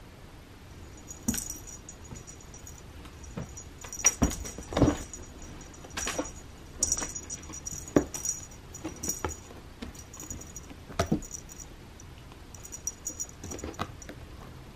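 A small bell on a pink pom-pom feather cat toy jingling in short runs as the toy is dragged and batted, with sharp thumps and scrapes of a cat's paws pouncing on a carpeted scratching ramp, the loudest in the middle.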